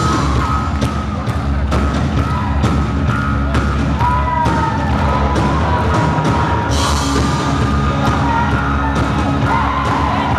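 Live rock band playing loud: distorted electric guitar lines bending in pitch over bass guitar and a steady drum beat, with a cymbal crash about seven seconds in.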